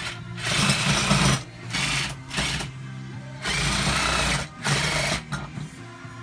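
Electric reciprocating saw cutting through a whole coconut's fibrous husk and shell, running in about five separate bursts of a second or less with short pauses between.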